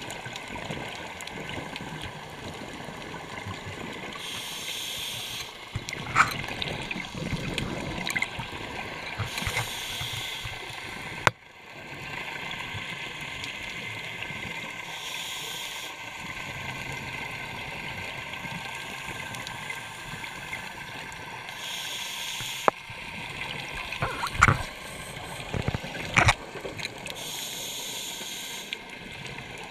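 Underwater sound of scuba breathing: a hiss of regulator breath and exhaled bubbles about every five to six seconds, over a steady water noise. A few sharp knocks come through, the loudest about a third of the way in and again near the end.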